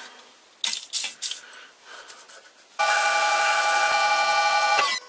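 Three short hisses of WD-40 sprayed from an aerosol can as cutting lubricant, then, about three seconds in, an old lathe running as a round-nose tool bit faces a nylon workpiece: a loud steady whine over a hiss that stops suddenly just before the end.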